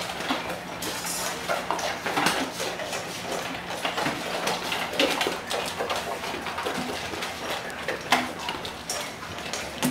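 Dogs eating from stainless steel bowls, with frequent irregular clinks and clatters as the metal bowls knock and scrape against the wooden bench.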